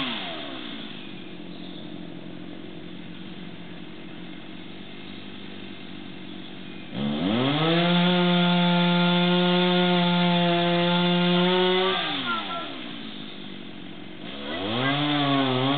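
Two-stroke chainsaw cutting into a tree trunk during the felling cut. It drops to idle at the start, is revved to a steady full throttle for about five seconds from about seven seconds in, falls back to idle, and revs up again near the end.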